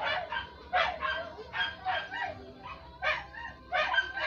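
An animal calling in a quick run of short, high-pitched yelps, about four a second, with brief gaps.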